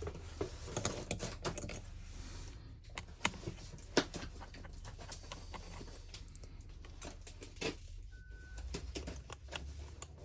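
Irregular small clicks and taps of hand tools on a laptop's casing and screws while a Samsung Galaxy Book2 is being taken apart, with two sharper clicks about three and four seconds in.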